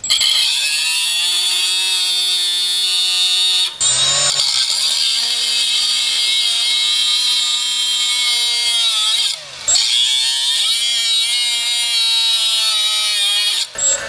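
Electric drill running under load, drilling into a stripped, rusted Phillips screw that holds a brake rotor to the hub. It whines steadily in three long runs, winding down briefly about four seconds in and again past the nine-second mark.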